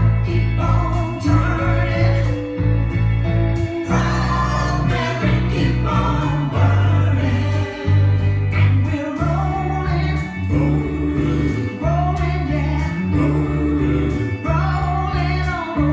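Music with singing over a heavy, steady bass beat.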